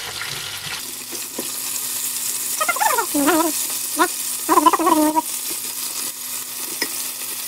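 Food sizzling as it fries in oil in a skillet, a steady hiss with a few light clicks of a spatula. Two short voice sounds are heard about three and five seconds in.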